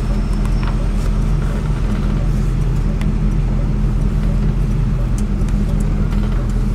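1968 Chevrolet Impala SS 396's 396 big-block V8 running at a steady speed, heard from inside the cabin as an even low drone with no revving.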